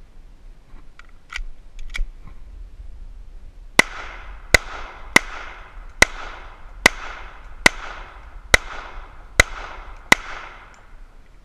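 Hi-Point .45 ACP pistol fired nine times in a steady string, a bit under a second between shots, each shot trailing a short echo. A few light clicks come before the first shot.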